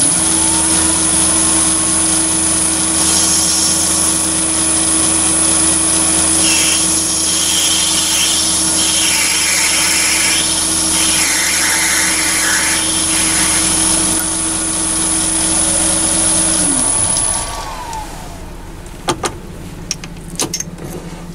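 Chinese mini lathe motor starting up and running steadily with a high whine while a parting tool cuts into spinning brass bar. The motor spins down with a falling pitch after about seventeen seconds, followed by a few light clicks as the parted-off brass collar is handled on the catching drill bit.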